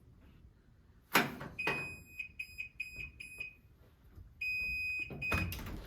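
Washing machine beeping at the end of its cycle: a steady high beep, a quick run of about six short beeps, then another long beep. A loud knock comes about a second in, before the beeps, and another near the end.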